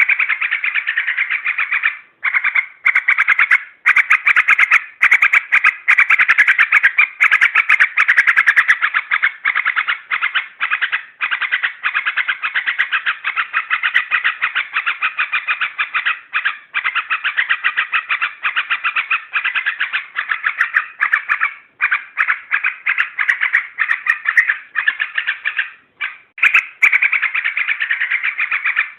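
Yellow-vented bulbul (trucuk) calls: a dense run of rapid notes, broken by short pauses every second or two, played as a lure sound to excite other trucuk.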